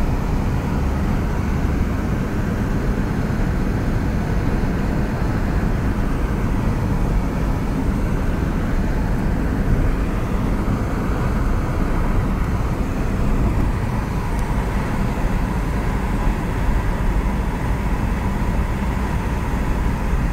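Steady road noise of a car driving at speed, heard from inside the car, with a heavy low rumble that points to wind on the microphone.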